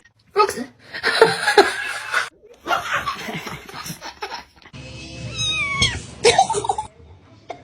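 Cats meowing and yowling over several abrupt cuts, with music and people laughing; around the middle, a few cries fall in pitch.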